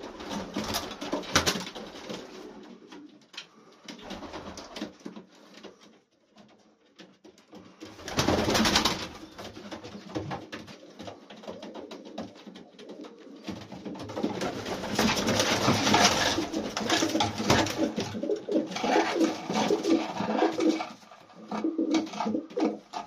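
Old Polish pigeons cooing repeatedly in a small loft, several birds overlapping. There is a brief louder rustling burst about eight seconds in, and the cooing grows denser and louder in the second half.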